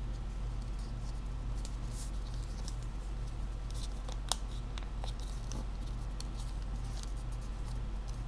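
Sheet of origami paper being folded and creased by hand, giving scattered short crackles and ticks, with one sharper click about four seconds in. A steady low electrical hum runs underneath.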